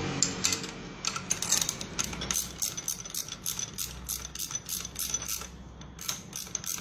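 Hand ratchet wrench clicking in a quick run of strokes, about four clicks a second, as a crankshaft bearing puller is turned by hand.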